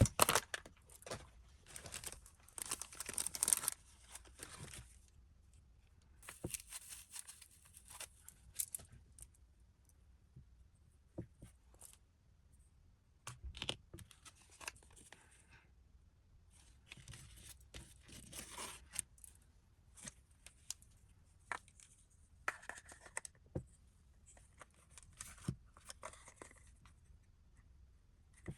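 Blind-box packaging being torn open and handled by hand: repeated short spells of tearing and rustling, with small clicks and taps between them.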